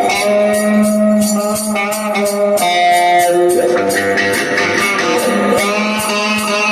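Rock song with guitar and a steady percussive beat, playing between sung lines.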